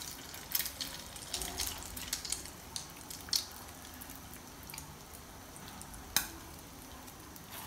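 An egg-coated bread roll frying in hot oil in a pan, with a steady sizzle and scattered crackles of spattering oil. A single sharp click stands out about six seconds in.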